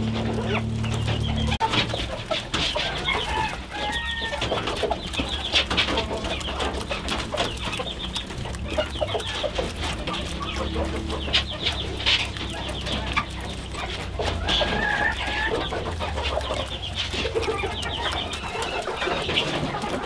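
Chickens clucking, mixed with many short clicks, over a low steady hum.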